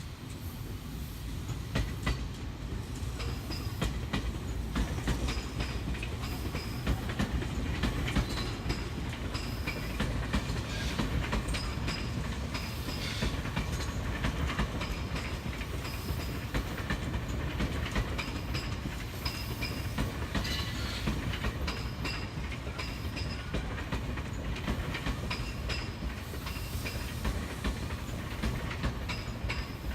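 Electric commuter train rolling past at steady speed, a continuous low rumble with its wheels clicking over the rail joints.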